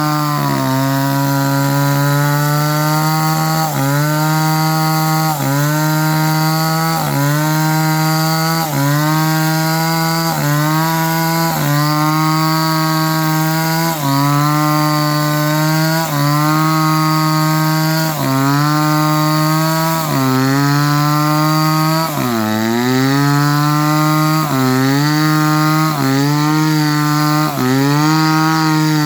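Chainsaw engine running continuously, its pitch sagging and recovering about every second and a half, with one deeper dip about two-thirds of the way through.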